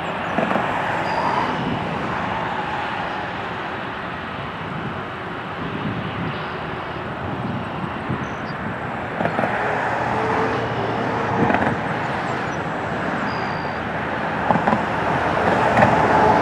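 Jet airliner's engines at takeoff power: a steady rushing noise that grows a little louder near the end.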